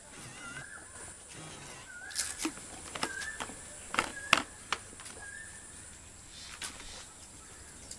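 Metal wire grill basket clicking and rattling as it is handled and opened, sharpest about four seconds in. A bird repeats a short whistled call every second or so in the background.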